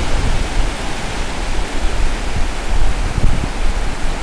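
Ocean waves breaking and washing up the beach: a loud, steady rush of surf with a heavy, uneven low rumble underneath.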